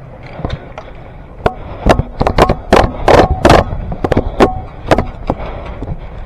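Airsoft guns firing: a run of sharp snapping shots that starts about a second and a half in, comes thickest and loudest around the middle and thins out near the end.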